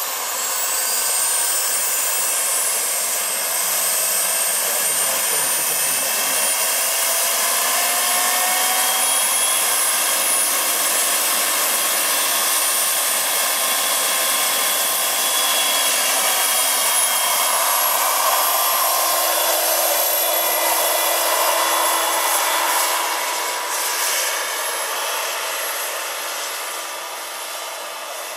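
Small gas-turbine engine of a large RC scale Super Puma model helicopter running with a high whine over the rush of the turning rotors, several tones climbing in pitch in the first seconds as it spools up. The sound fades over the last few seconds as the helicopter lifts off.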